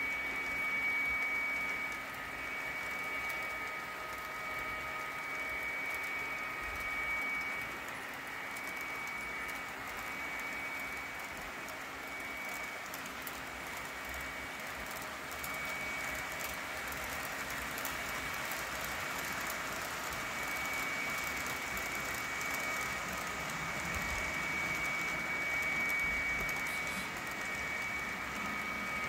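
Model trains running on the layout: the steady clatter of small wheels rolling over the track, with a steady high whine that fades out for a while mid-way and comes back in the second half.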